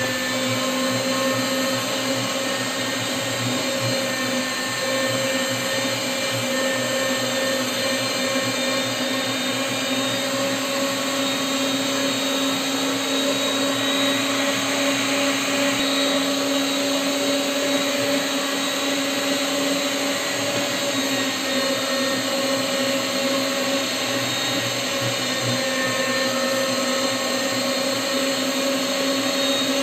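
Electric meat grinder running steadily under load, its motor humming at a constant pitch as it forces kibbeh dough through the grinding plate.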